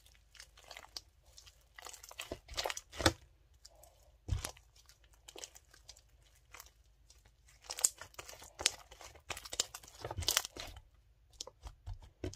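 Homemade glue slime being stretched and squeezed by hand: irregular sticky clicks and crackles, bunched in bursts with short pauses between them.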